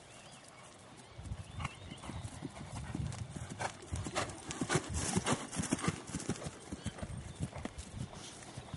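Hoofbeats of a ridden Thoroughbred mare on grassy, dirt ground: a quick, continuous run of short thuds that starts about a second in.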